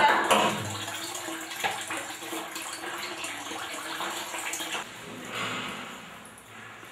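Water running, with a sudden loud noise right at the start.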